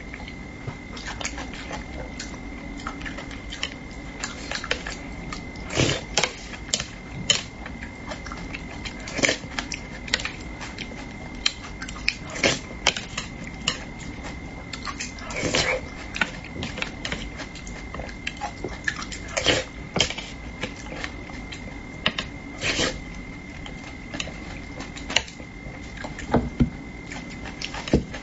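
Close-miked eating of spicy braised fish: irregular chewing and mouth smacks, with chopsticks and a spoon clicking against the dish. A faint steady high-pitched tone runs under it.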